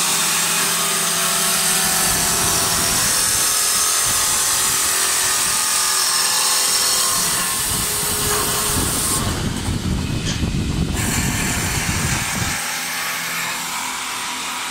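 Automatic wood-turning lathe for making rolling pins running, its cutter shaving a spinning wooden blank with a steady high hiss over the machine's running noise. A deeper rumble joins about two seconds in and stops about twelve seconds in.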